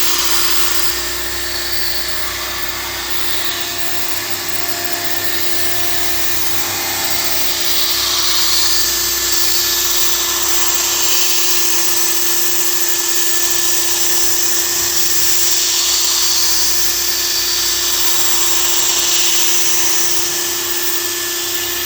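CNC milling machine spindle running while the cutter enlarges a hole in a mold: a steady whine with a hiss of cutting that rises and falls slowly.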